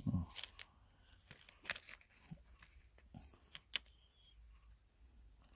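Faint crinkling and scattered small clicks of coins and their packaging being handled.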